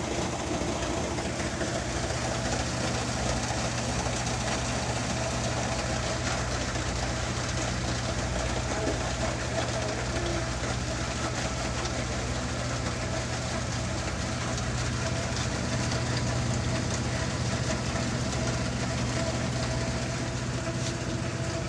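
Small portable washing machine running, a steady, even motor hum.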